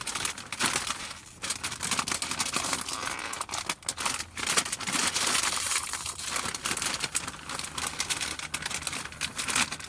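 Crinkly plastic snack bag of corn puffs being crumpled and pulled at in the hands, a dense crackling throughout, as someone struggles to tear it open.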